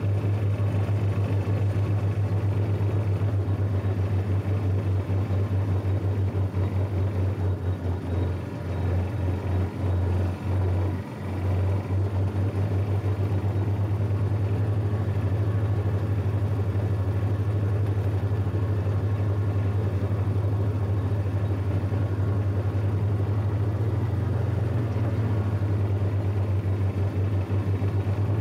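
Riding lawn tractor's engine running steadily at a low, even hum while driving across grass; the sound dips briefly several times about ten seconds in.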